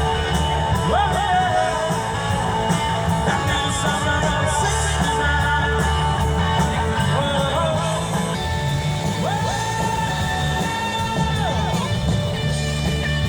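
Live rock band playing loud through a PA, with drums, bass and electric guitar and a singing voice over them.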